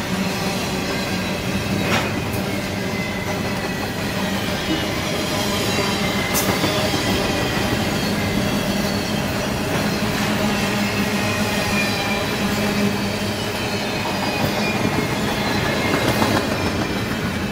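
Double-stack intermodal freight train cars rolling past: a steady loud rumble of steel wheels on rail, with thin high wheel squeal and an occasional sharp click.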